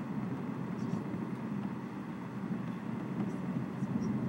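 Low, steady rumble of distant thunder during a thunderstorm, with a few faint ticks above it.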